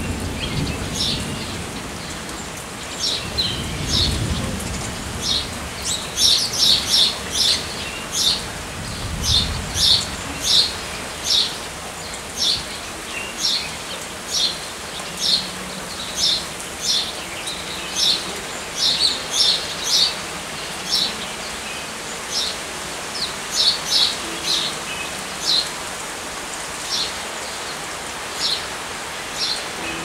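Steady rain falling, with a small bird chirping over it, short high chirps about twice a second for most of the stretch. A few low rumbles of wind come in the first ten seconds.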